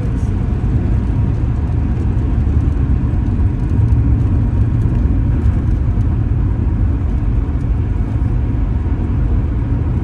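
Steady low drone of a Honda Accord V6 cruising on the highway, engine and road noise heard from inside the car, even and unchanging.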